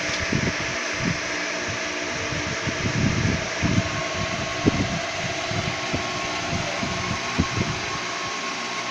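Steady whirring hum of an electric fan running in the room, with scattered soft low thumps.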